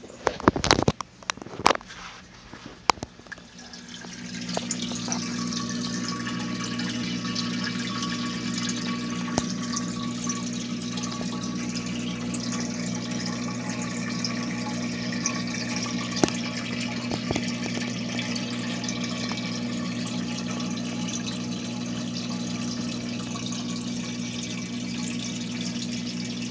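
Aquarium water churning and splashing steadily, with the low hum of a pump motor underneath, typical of a running tank filter. A few sharp knocks come in the first three seconds, and the water noise grows louder about four seconds in.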